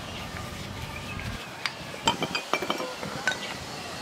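Metal CVT parts of a Honda Click scooter clinking and knocking together as they are handled and washed. There is a quick run of sharp clinks in the second half.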